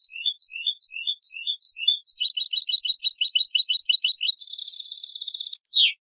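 European goldfinch singing: a series of short repeated twittering phrases, then a fast trill, a dense buzzy phrase held for about a second, and a short falling note near the end.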